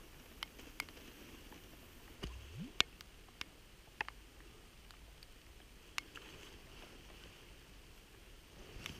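Raindrops striking the camera: a dozen or so sharp, irregular ticks over a faint steady hiss, the loudest about three seconds in. A low thud with a short rising sweep comes about two and a half seconds in.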